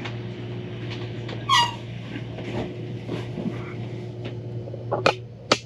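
A small dog lets out one short whimper about a second and a half in, over a steady low hum. Two sharp knocks come near the end.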